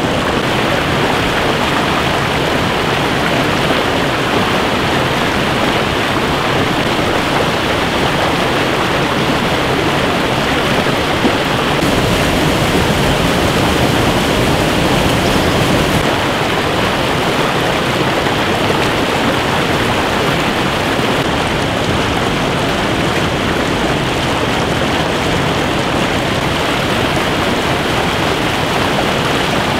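Fast stream water rushing steadily over rocks, a constant loud rush with no change in rhythm.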